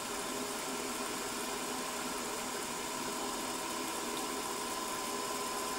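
Milling machine motor and spindle running steadily with a low hum and a thin, steady whine, spinning an edge finder as it is fed slowly toward the workpiece.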